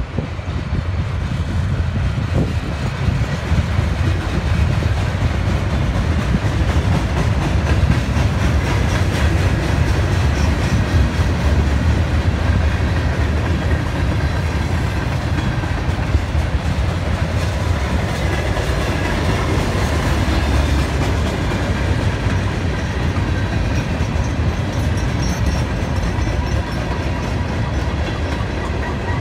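Freight cars of a mixed freight train rolling past at close range: a steady, loud rumble of steel wheels on the rails with a clickety-clack from the wheels.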